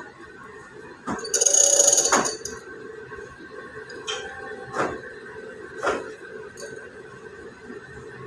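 Stirrer motor of a ring-and-ball softening point apparatus running with a steady whine while the water bath heats. About a second and a half in there is a louder rasping noise lasting about a second, and a couple of sharp knocks come near the middle.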